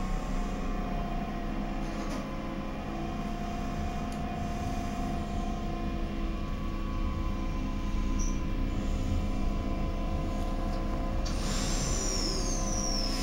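Stadtbahn light-rail car standing at an underground platform, its onboard equipment giving a steady hum of several fixed tones. Near the end comes a burst of hiss with a falling high whistle.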